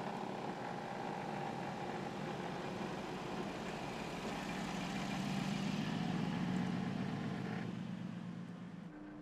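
Mercedes-Benz G 500's 4.0-litre biturbo V8 running at low revs as the vehicle crawls slowly over a wooden bridge, a steady low hum that swells as it passes overhead about five to seven seconds in, then fades.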